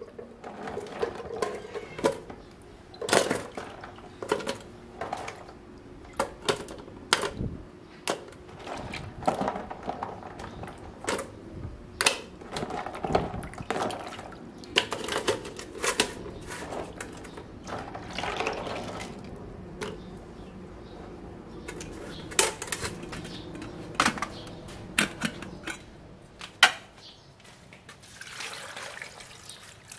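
Freshwater clams being washed by hand in a basin of water: water sloshing and splashing, with many sharp clacks of shells knocking together and dropping into a metal pot.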